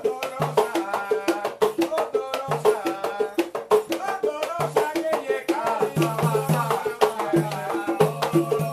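A set of three consecrated batá drums (iyá, itótele and okónkolo) playing interlocking rhythms with voices singing over them, in the sung oru sequence for the oricha Ochun. The deep open tone of the largest drum, the iyá, recurs about once a second and falls into quick clusters near the end.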